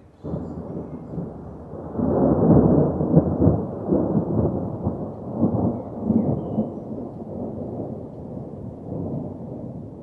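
Thunderstorm: rolling thunder over rain. The rumble swells to its loudest about two seconds in, then slowly eases off.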